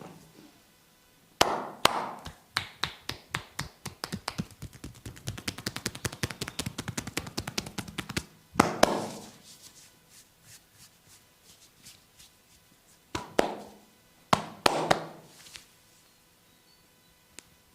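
Percussive massage strokes: hands slapping and tapping on the body. A long run of quick taps speeds up to several a second, then a few louder single slaps come near the middle and again later.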